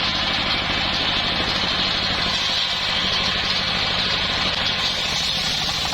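Loud, steady running of an engine-driven circular sawmill: an even, rapid low engine pulse under a constant high-pitched hiss.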